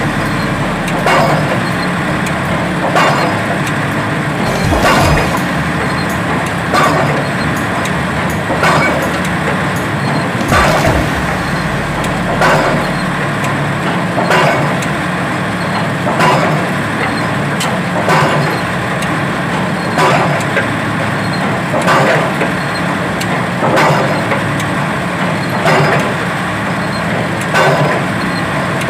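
Pile-driving hammer striking a pile, one blow about every two seconds, over the steady running of the piling rig's engine.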